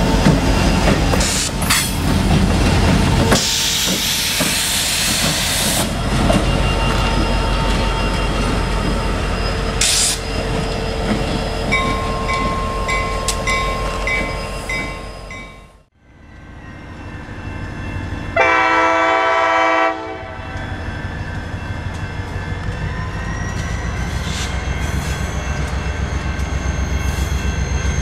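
Diesel locomotives running light, among them CSX SD40-2 #8016, pass close with a loud engine rumble and wheel noise, then fade as they pull away. After a break, a locomotive air horn sounds one chord of about a second and a half, and the diesel engine rumble builds as the locomotive approaches.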